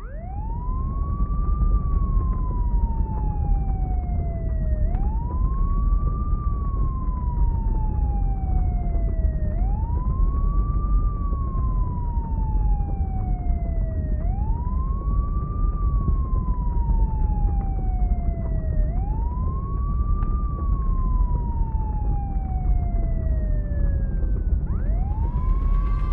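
Emergency vehicle siren wailing, each cycle rising quickly and falling slowly, about every five seconds, over a steady low rumble.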